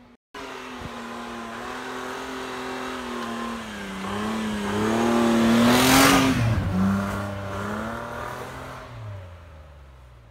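Mitsubishi four-wheel-drive driving through deep snow and passing close by: its engine grows louder as it approaches, a hiss of thrown snow as it goes past about six seconds in, then the engine note drops in pitch and fades as it pulls away.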